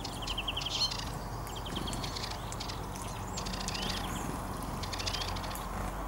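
Small finches and tits at a seed feeder calling: several fast twittering trills and short rising and falling call notes, with a few sharp clicks among them.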